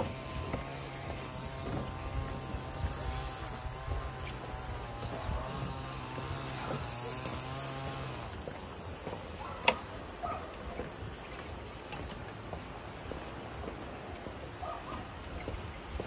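Summer outdoor ambience of insects buzzing in the trees, over a steady low hum that stops about halfway through. A single sharp click sounds near the middle.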